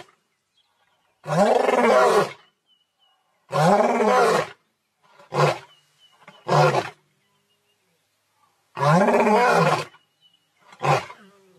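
Male lion roaring in a series of separate calls: three long roars of about a second each and three shorter ones, each rising and falling in pitch, with silent pauses between.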